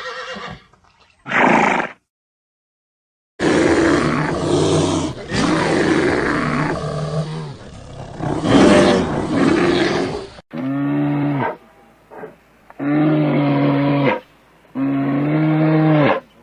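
Animal calls: about seven seconds of loud, rough roaring or growling, then three long, steady-pitched calls with pauses between them.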